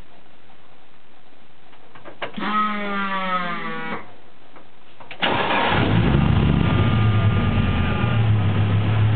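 A kit car's engine being started. First a rising electric-motor whine of about two seconds as the key is turned, then a couple of clicks. About five seconds in, the engine fires at once and settles into a loud, steady idle with a low exhaust note, on its first (almost) start.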